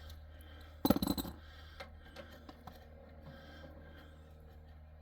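A brief clatter of small metal objects about a second in, followed by a few faint clicks, over a steady low hum.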